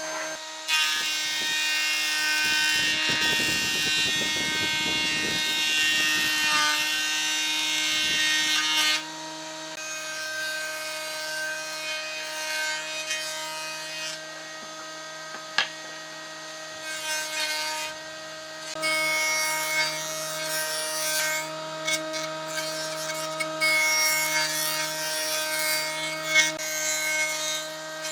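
Electric power tool running at a steady pitch while working wood. Loud stretches of cutting noise come when it bites into the wood, for most of the first nine seconds and again through much of the second half, with the motor running lighter between them.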